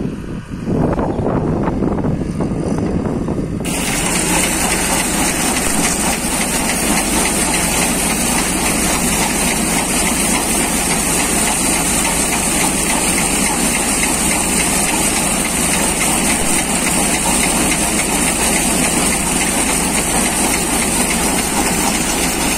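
An excavator engine runs for the first few seconds. About four seconds in, a Hindustan threshing machine takes over, running steadily with a loud, dense mechanical noise and a strong high hiss.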